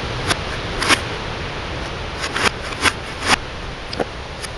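A hammer knocking on a CRT television's casing and broken screen glass, about eight sharp knocks at irregular spacing over a steady hiss. The sound is played backwards, so some knocks swell up and stop sharply.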